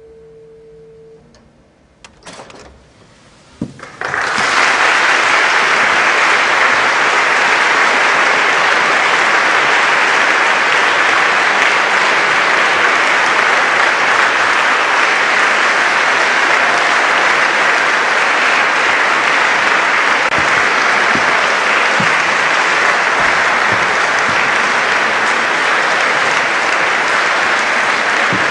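The last held chord of the Antegnati pipe organ stops about a second in. About four seconds in, an audience bursts into applause that goes on steadily.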